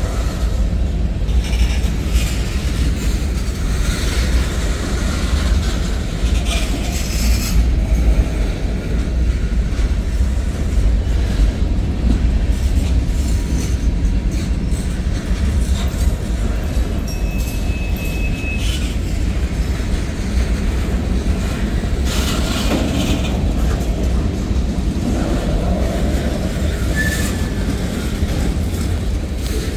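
Freight cars of a mixed manifest train rolling past: a steady heavy rumble, with wheels clacking over the rail joints now and then. A brief high wheel squeal comes a little past the middle.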